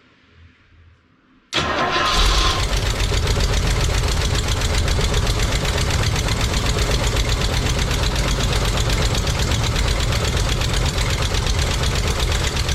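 Rolls-Royce Silver Shadow I V8 engine running, coming in suddenly about a second and a half in, with a fast, even ticking from an exhaust leak at the manifold that new gaskets have not cured.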